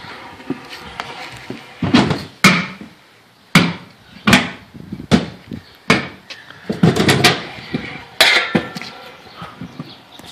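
Stunt scooter clattering on concrete and a launch ramp: a run of sharp smacks and clacks at uneven intervals as the deck and wheels come down hard, with wheel rolling noise between.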